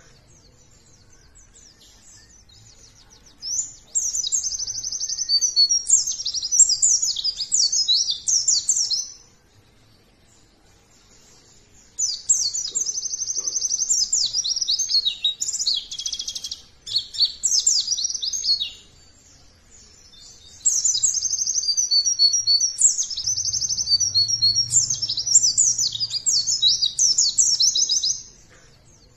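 White-eye (pleci) singing in three long bouts of fast, high twittering warbles and trills, with short pauses between them.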